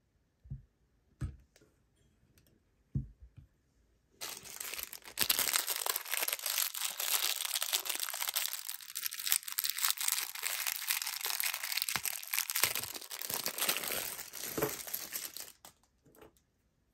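A few light knocks, then a small clear plastic parts bag crinkling and tearing as it is pulled open, lasting about ten seconds before stopping suddenly.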